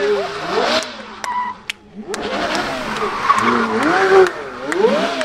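Porsche Carrera GT's 5.7-litre naturally aspirated V10 revving up and down over and over in a smoky donut burnout, with the rushing noise of the spinning rear tyres. The engine note drops away briefly a little before two seconds in, then picks up again.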